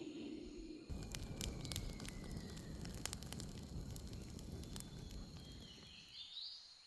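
Campfire crackling: sharp irregular pops and snaps over a rushing hiss, starting suddenly about a second in and dying down near the end, where faint bird chirps come through.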